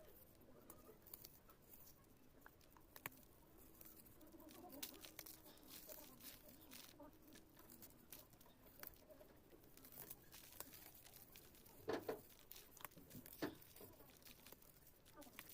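Dry clay crumbles being crushed: faint, irregular crunching and crackling.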